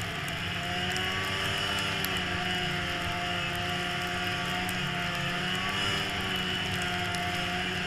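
Snowmobile engine running steadily while riding, its pitch wavering slightly up and down over a constant rushing hiss.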